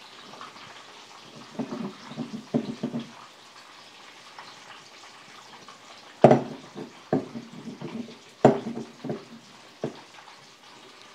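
Glass mixing bowl being wiped with a cloth and handled on a wooden worktop: soft rubbing and rattling about 2 s in, then four sharp knocks as the bowl is set down and moved, over a faint steady hiss.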